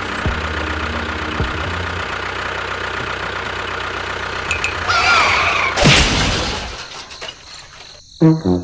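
An engine running steadily, then a sudden crash with a brief whistling sound about five to six seconds in, after which it fades away.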